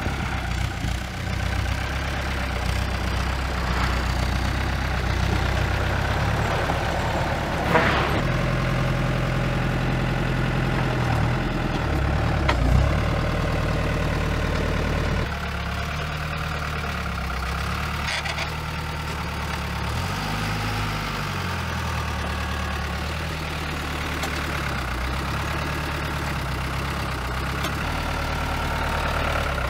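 Diesel engine of a truck-mounted forklift running, its note shifting a few times and briefly rising and falling about 20 seconds in as the mast and hydraulics are worked. Sharp clanks about 8 seconds in and again near 13 seconds.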